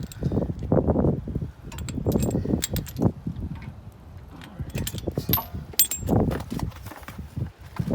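Metal brake parts and tools clinking and being handled during rear brake pad work, with sharp clicks and irregular dull thumps and rumbles.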